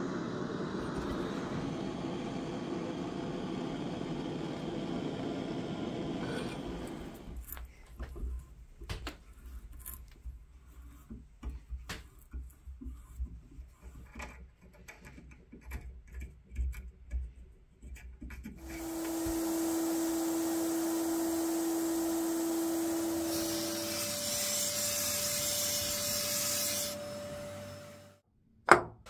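A gas torch's flame roars steadily for about six seconds while heating a steel tube in a vise. Then come scattered clicks and scraping from hand work on metal parts, and near the end a motor runs steadily with a whine that jumps higher partway through, ending with a sharp knock.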